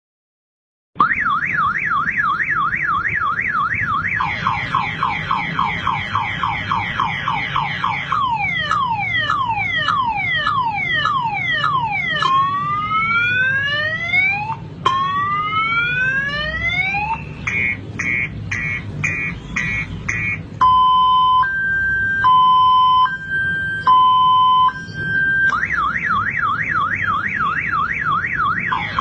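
Car-alarm siren cycling through its tone sequence: a fast warble, then a slower warble, a run of falling sweeps, a run of rising sweeps, rapid repeated chirps and alternating high-low beeps, before the fast warble returns near the end.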